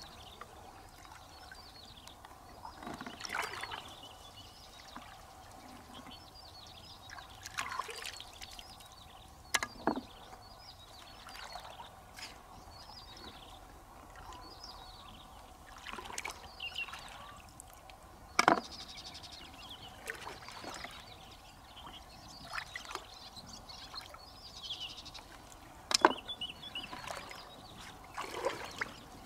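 Shallow lake water sloshing and splashing in short, irregular bursts as a person wades and gropes along the muddy bottom by hand, with a few sharper splashes.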